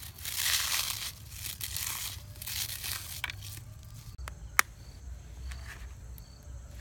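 Hands crumbling and squeezing a dry, crumbly stingray cutlet mixture in a steel bowl, a gritty rustling that comes in several surges. About four and a half seconds in, an egg is tapped sharply and cracked over the bowl.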